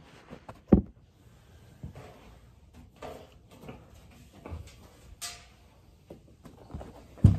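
Handling knocks, clicks and rustling as a brass tuba is lowered into its hard case on the floor, with two heavy thumps, one about a second in and one at the very end.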